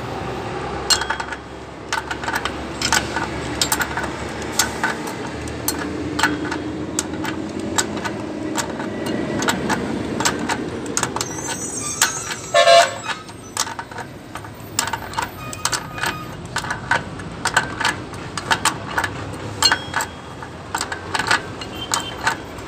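Repeated sharp metallic clicks and clinks of a steel pipe wrench being set on and turned against the gear's shaft nut of a rotavator gear case. A short horn-like toot sounds about halfway, over a steady background hum.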